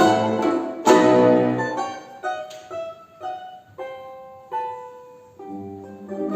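Instrumental music with piano-like and plucked notes: full chords at the start and about a second in, then a sparse passage of single notes, and fuller chords returning near the end.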